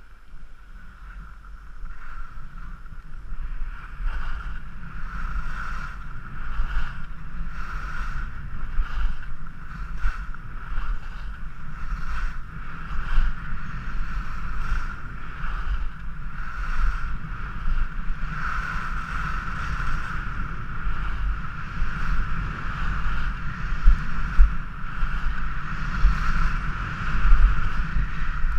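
Skis sliding and scraping over hard-packed piste snow on a downhill run, with a rasping edge scrape about once a second as the skis turn, under steady wind rushing on the microphone. It grows louder about two seconds in.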